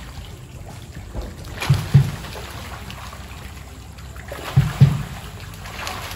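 Water splashing and sloshing as a packed school of fish thrashes at the surface. The splashing comes in three surges about three seconds apart, each with two short, dull low thumps.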